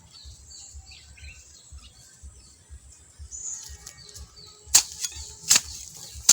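Small birds chirping rapidly in the background, then, about three-quarters of the way through, three sharp hits about three-quarters of a second apart as a hand hoe strikes the soil while earthing up maize.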